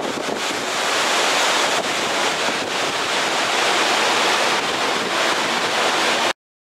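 Strong typhoon wind blowing in a steady, loud rush, buffeting the microphone. It cuts off suddenly near the end.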